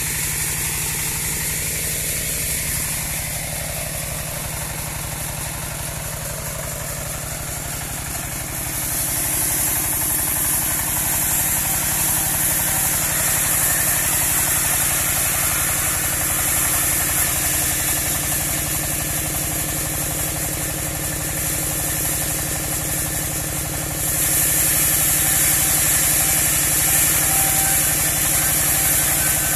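Engine of a portable bandsaw sawmill running steadily, with a high hiss above it that gets louder about a third of the way in and again near the end.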